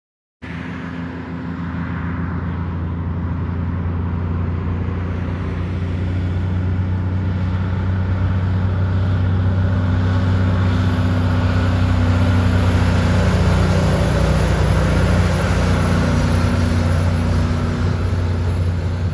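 Diesel semi-trailer truck heading down a hill: a steady low engine drone with tyre and road noise, growing louder as it approaches and passes. The sound cuts in suddenly about half a second in.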